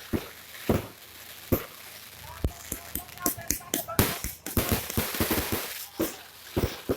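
Fireworks and firecrackers going off: an irregular run of sharp bangs and crackles, with a dense cluster about four seconds in.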